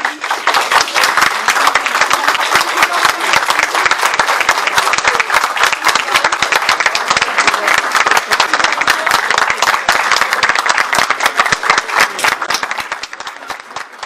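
Audience applauding, a loud dense patter of many hands clapping that thins out and fades near the end.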